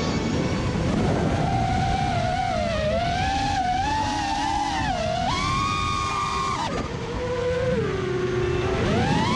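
FPV racing drone's motors and propellers whining, the pitch wavering up and down with throttle, jumping higher about five seconds in and dropping low near the end before climbing again, over a steady rush of wind on the onboard GoPro.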